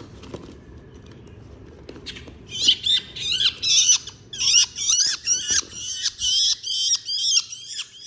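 Long-tailed shrike (cendet) calling: a fast series of sharp, harsh chattering calls in quick bursts with short gaps, starting about two and a half seconds in.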